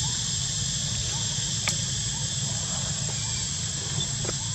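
Steady outdoor background noise: a low hum under a thin, steady high-pitched whine, with a few faint short chirps and one sharp click about two seconds in.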